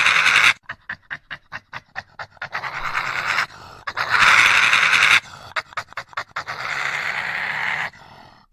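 Dinosaur creature sound effect: two loud breathy hisses, each followed by a run of quick short puffs at about six a second, then a longer, softer hiss near the end.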